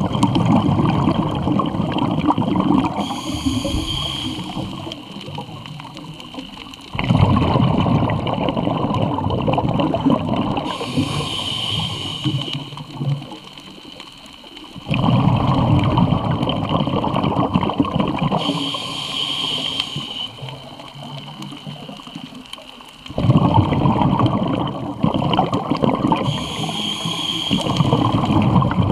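Scuba diver breathing through a regulator underwater, four breaths about eight seconds apart: each a short hissing inhale, then a loud gurgling gush of exhaled bubbles lasting a few seconds.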